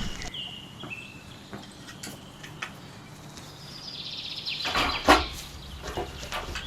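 Short bird calls and chirps, with one sharp knock just after five seconds in.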